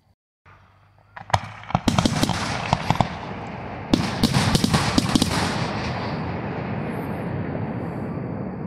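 Aerial firework shells bursting in a finale barrage: sharp bangs begin about a second in and come thick and fast, with a second heavy run of reports about four seconds in. The reports then merge into a dense crackle and echo that slowly fades.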